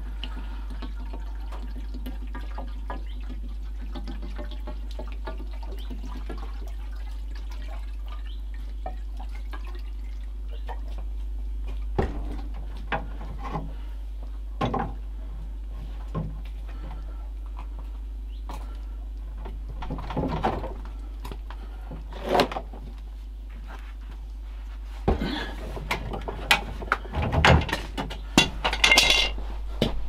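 Water poured from a plastic bottle into a jet pump's inlet and ejector housing, trickling and gurgling steadily as the housing fills during priming. From about twelve seconds in come scattered knocks and clunks of handling at the pump, busiest near the end.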